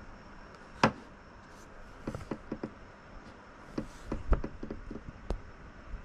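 A series of sharp, irregular knocks and taps: a loud one about a second in, a quick cluster a second later, and more towards the end, over a faint steady hiss.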